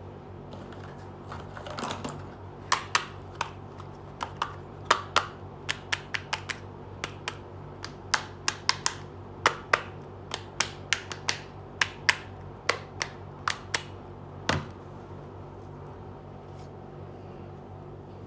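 Pink hard-plastic toy slippers being handled, clicking and tapping in a quick, irregular series of sharp taps that stops with one louder knock near the end, after a short rustle at the start. A steady low hum runs underneath.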